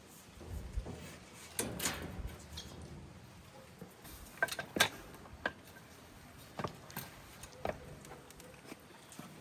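A few scattered light knocks and clicks, the loudest pair about four and a half seconds in, typical of things being handled and set down.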